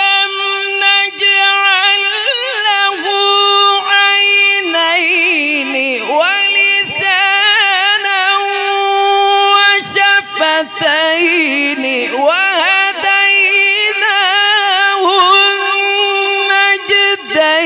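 A male qari chanting Quran recitation in the melodic tajweed style. He holds long high notes and ornaments them with quick wavering trills and glides, broken by a few short breaths.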